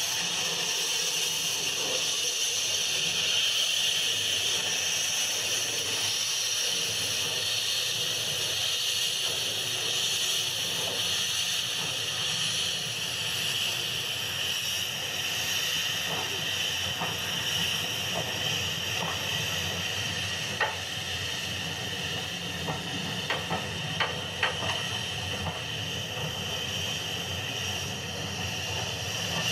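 Steam locomotive giving off a steady hiss of escaping steam as it pulls away with its train. A few short, sharp beats come through in the second half.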